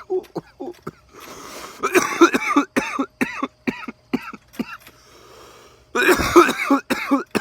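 A man coughing hard in repeated fits, three bouts of rapid coughs with breaths drawn in between, after a hit from a vape cartridge.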